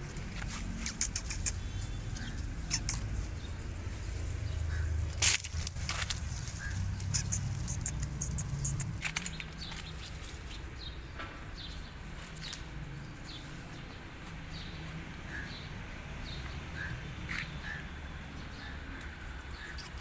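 Dry leaves rustling and crackling, with a sharp click about five seconds in, over a low background rumble. Through the second half, small birds chirp over and over, each chirp short, high and falling.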